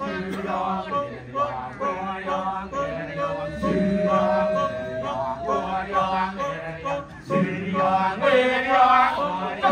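Balinese kecak chorus: many men chanting "cak" in fast interlocking rhythms over a steady low vocal drone. A few seconds in, one voice holds a long note that rises slightly.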